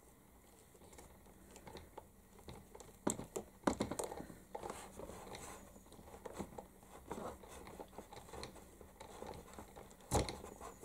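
Pin vise with a tiny drill bit boring a pilot hole by hand through the plastic rear light housing of a 1/16 Heng Long RC truck: faint scratching and scraping with scattered clicks, and a few louder knocks around four seconds in and again near the end.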